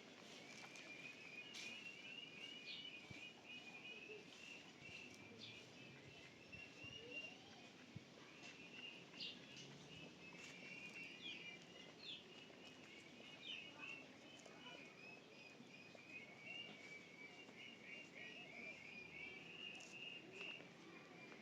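Faint chirping of small birds: long runs of rapid, high, repeated chirps, with a few brief clicks scattered through.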